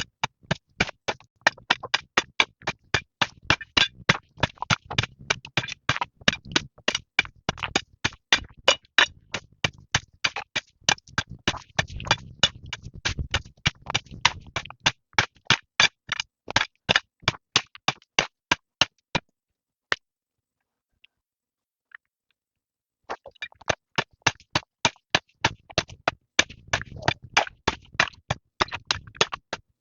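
A fast, even series of sharp knocks, about four a second, like repeated striking or chopping. The knocks stop for a few seconds, apart from a single one, and then resume near the end.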